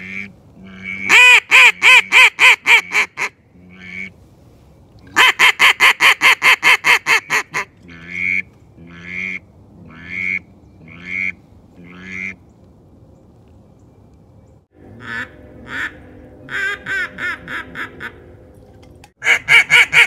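Hand-held duck call blown by a hunter to imitate a mallard hen: loud quacks in several fast runs, with a stretch of slower single quacks about one a second in the middle.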